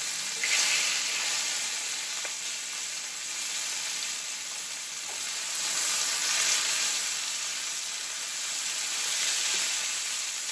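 Beef steaks searing in hot vegetable oil in a cast iron skillet: a steady, loud sizzle that swells a little now and then as the steaks are turned over, with a few faint clicks of metal tongs.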